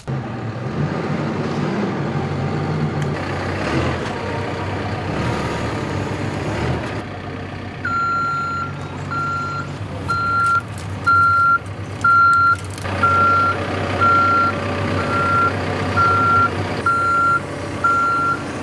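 Caterpillar backhoe loader's diesel engine running, and from about eight seconds in its reversing alarm beeping about once a second.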